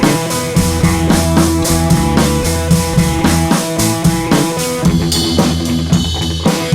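Background music: a drum-kit beat of about two hits a second with bass and guitar, loud and steady; the mix thins briefly about five seconds in.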